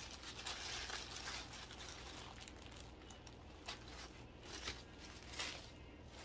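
Faint rustling and crinkling of packaging and a fabric shawl being handled, with a few soft light clicks, over a low steady hum.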